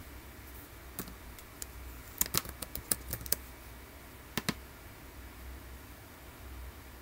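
Typing on a computer keyboard: a couple of single clicks, then a quick run of keystrokes about two seconds in, then two clicks in quick succession a little past four seconds as a mouse button is pressed. A faint low hum runs underneath.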